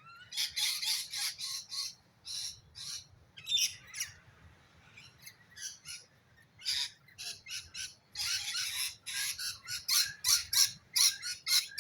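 Birds squawking in many short, harsh, high-pitched calls that come in clusters with brief pauses between.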